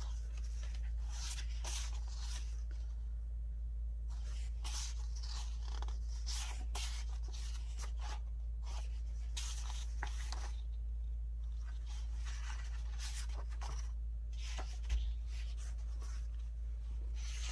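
Sheets of patterned paper rustling and sliding as they are handled and sorted, in irregular scratchy brushes over a steady low hum, with one soft bump about fifteen seconds in.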